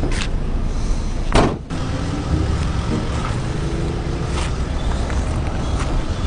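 A car engine running steadily, with one short sharp noise about one and a half seconds in.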